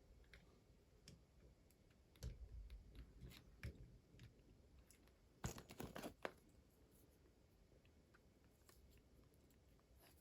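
Quiet handling of doll packaging: scattered faint clicks and crinkles, with a louder cluster of crackly clicks about five and a half seconds in.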